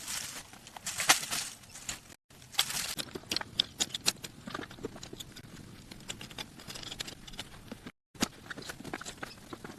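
Irregular crunching, snapping and knocking handling sounds, with a louder knock about a second in. The sound drops out completely twice, briefly.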